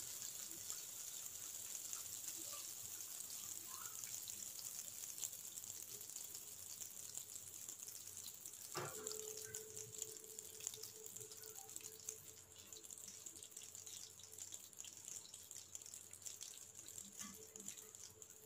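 Faint crackling and hissing of hot ginger-and-sugar candy mixture pouring from a pan into a greased steel plate. A single knock comes about nine seconds in, followed by a faint steady hum.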